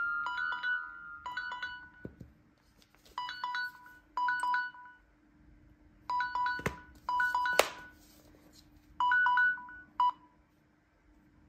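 Samsung smartphone's timer-expired alert: short groups of quick electronic beeps, repeating about once a second with brief pauses between groups, over a faint steady hum. A sharp click about seven and a half seconds in.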